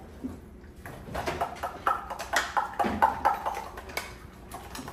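Whisk and spoon beating ricotta and egg in stainless steel mixing bowls: rapid metal clinks and scrapes against the bowls, starting about a second in and running until near the end.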